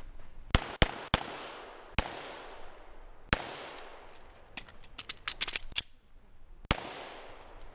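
Shots from a 9mm Glock 34 pistol. Three quick shots come within the first second or so, then single shots about two and three and a half seconds in. A quick run of fainter cracks follows around five seconds, and one more loud shot comes near the end.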